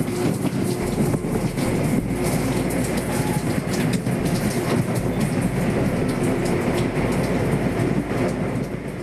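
Running noise inside a moving Indian Railways locomotive cab: a loud, steady rumble with a low hum and frequent small clicks and rattles.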